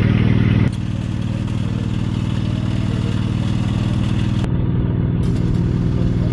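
An engine running steadily with an even, rapid pulse. It drops abruptly in level less than a second in.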